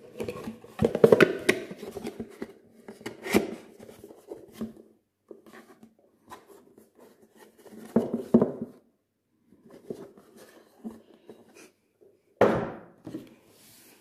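A cardboard box and its paper contents being handled on a wooden table: irregular rustling and scraping, with several knocks and thumps.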